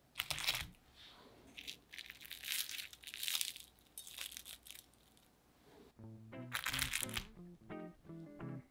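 Crisp breadcrumb crust of a fried mashed-potato triangle crunching and crackling as it is pulled apart by hand, in several bursts over the first five seconds. Plucked guitar music starts about six seconds in.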